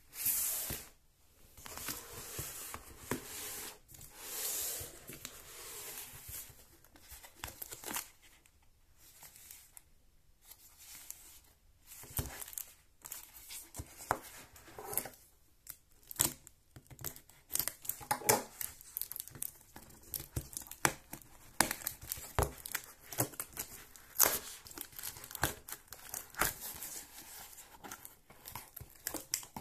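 Packaging being torn open and crinkled by hand. Several longer tearing strokes come in the first few seconds, then many short crackles and taps as the wrapping is handled.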